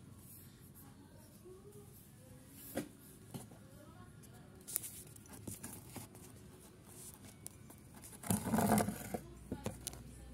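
Handling noise on a phone's microphone: scattered faint taps and rustles, with a louder rubbing burst lasting about a second, a little over eight seconds in.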